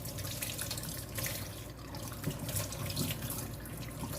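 Kitchen faucet running steadily, water splashing into the sink as something is rinsed under it.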